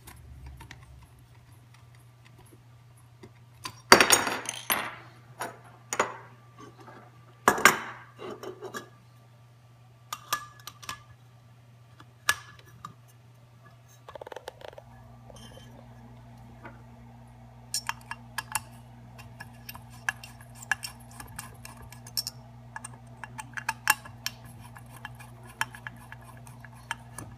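Sharp metal clanks and clinks as a Liebherr 922 excavator's new bucket is picked up and seated in a manual quick coupler, the loudest about four and seven seconds in, over a steady low hum of the running machine. About halfway a second steady hum joins, and lighter metal clicks follow until near the end.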